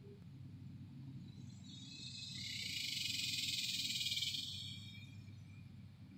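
A high, hissing insect buzz swells up about two seconds in, holds, and fades away by about five seconds, over a steady low hum.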